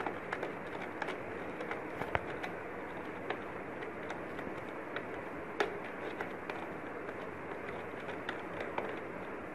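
Scattered light clicks and taps of a screwdriver and fingers on a projector's plastic casing as its screws are undone, over a steady background hiss.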